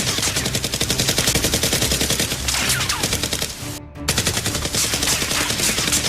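Dubbed automatic-gunfire sound effect: a rapid, unbroken stream of shots that breaks off briefly about four seconds in, then resumes.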